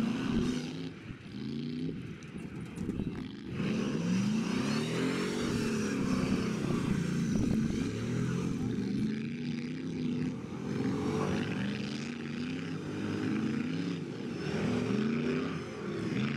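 Off-road race truck's engine revving hard under load, its pitch climbing and dropping repeatedly as the driver works the throttle through mud and up a dirt mound.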